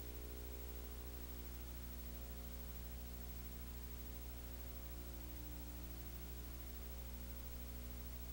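Steady low electrical mains hum with a ladder of buzzy overtones over constant hiss; no other sound.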